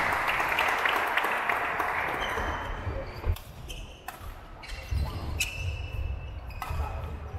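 Badminton rally on a wooden sports-hall court: sharp racket hits on the shuttlecock, a few seconds apart, with shoes squeaking and footfalls thudding on the floor. A broad hall noise fades out over the first few seconds.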